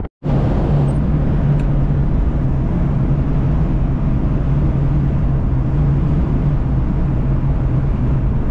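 Volkswagen Kombi van cruising on the highway, heard from inside the cab: a steady engine drone with road and wind noise. The sound drops out for a split second right at the start.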